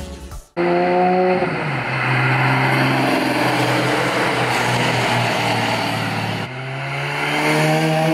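Porsche 911 GT3 flat-six exhaust as the car accelerates away under an overpass. Its note drops in pitch about a second and a half in, then holds steady. Near the end a Lotus Elise's engine takes over, climbing in pitch as it accelerates.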